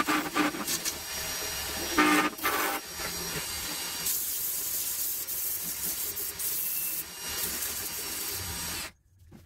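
Wood lathe spinning a turned wooden pot: a gouge cutting the wood with a rough, scraping chatter for the first few seconds, then from about three seconds in sandpaper held against the spinning wood gives a steady hiss. The sound cuts off abruptly near the end.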